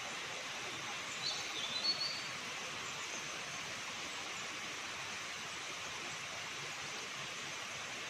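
Steady rushing of a waterfall. About a second in, a bird gives a few short high chirps.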